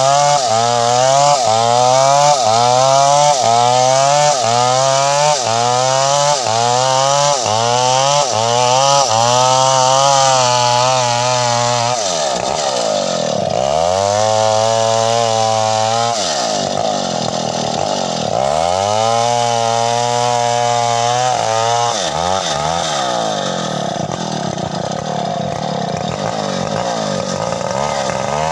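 Chainsaw engine revved in quick throttle blips, its pitch rising and falling back about once a second, then for the last half running with slower, longer drops and climbs in speed.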